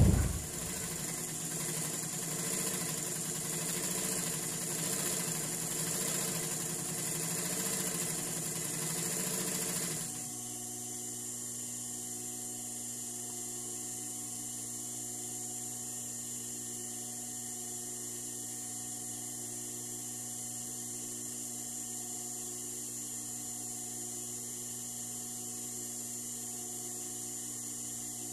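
Industrial sewing machine stitching with a shirring foot, gathering the fabric into ruffles as it sews. About ten seconds in the stitching stops and a steady motor hum carries on.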